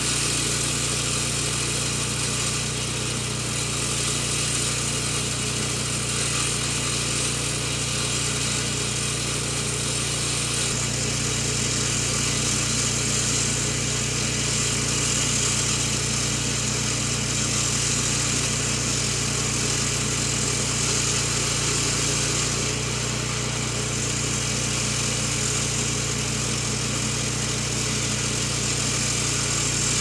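Norton Clipper CS451 floor saw cutting asphalt with an Extreme Asphalt diamond blade. Its Honda GX390 single-cylinder petrol engine runs at a steady pitch under the blade's steady grinding hiss.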